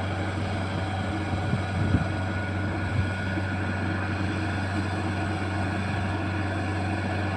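Rice combine harvester engine running steadily with a low, even drone, and two brief knocks about two and three seconds in.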